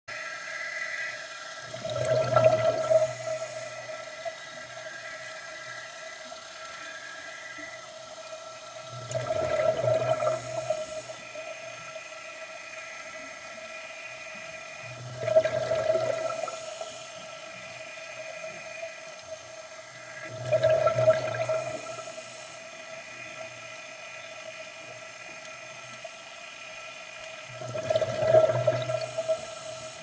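Scuba diver breathing through a regulator underwater: five gurgling rushes of exhaled bubbles, about one every six seconds, over a steady thin whine.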